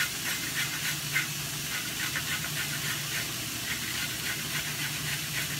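Lion's mane mushrooms sautéing in a frying pan, a steady sizzling hiss, with short repeated rasps of a carrot being grated by hand over the pan.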